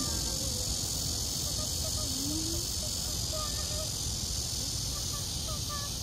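Cicadas singing in a steady, continuous high-pitched chorus, with faint scattered voices beneath it.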